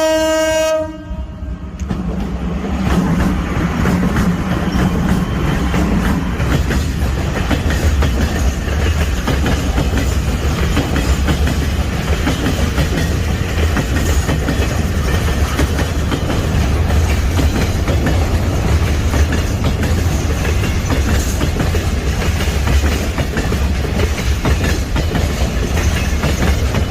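Electric locomotive's horn sounding one steady blast that cuts off about a second in, then a freight train running past with a steady low rumble and wheels clacking over the rail joints.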